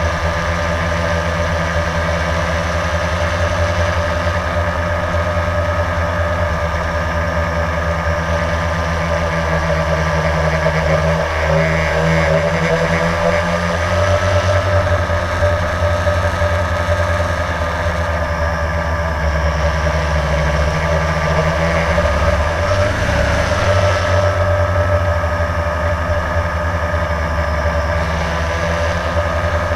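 Blade quadcopter's electric motors and propellers whining steadily in flight, heard from the GoPro carried on it. The pitch rises briefly twice.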